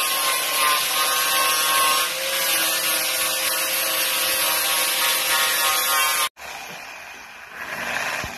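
Angle grinder with a sanding disc running against a plywood edge: a steady high whine with a rasping hiss. It cuts off suddenly about six seconds in, and a quieter electric drill boring into the plywood follows.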